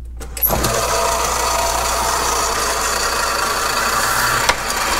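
Old South Bend flat-belt-driven lathe switched on at its drum switch: about half a second in the motor, flat belt and spindle come up to speed and settle into a steady mechanical run, the belt's laced joint ticking as it comes around. A single sharp knock about four and a half seconds in.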